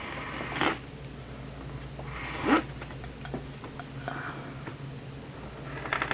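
Scissors cutting into plastic shrink-wrap on a boxed product and the wrap crinkling as it is pulled away, in short scratchy rustles; the loudest comes about two and a half seconds in.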